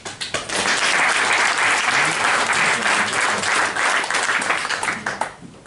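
Audience applauding, starting right away and dying out after about five seconds.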